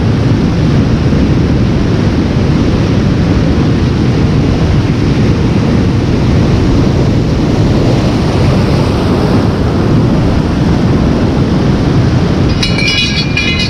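Surf breaking and washing over a rocky shore, with wind buffeting the microphone: a loud, steady rumbling wash. A brief high chirping sound comes near the end.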